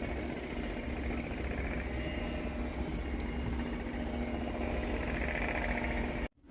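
Motor vehicle running: a steady low rumble with an even engine hum.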